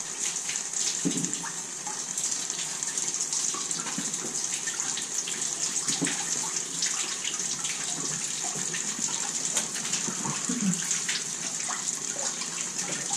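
Garden-hose water flushing through a truck engine's cooling system and running out of the drain holes: a steady hiss of flowing water with irregular splashes and drips.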